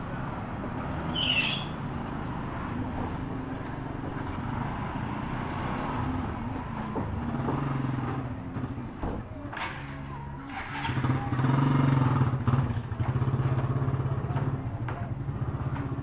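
A small engine running with a steady low hum, getting louder about eleven seconds in. A brief high chirp sounds about a second in.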